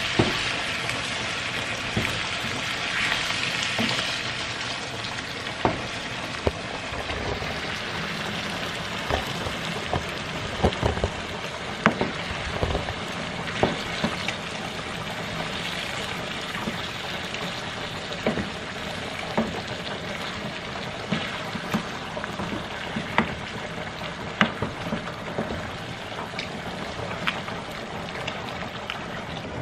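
Food frying in a pan with a steady sizzle, a little louder for the first few seconds. A utensil stirs it, making frequent short clicks and scrapes against the pan.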